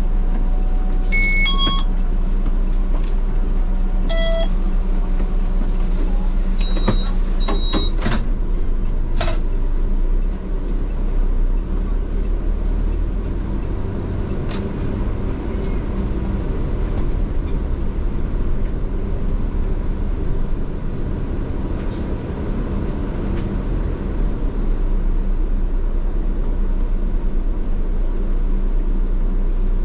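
Diesel bus engine running steadily, heard from the driver's cab. Several short electronic beeps sound in the first eight seconds, and a brief hiss of air about six seconds in.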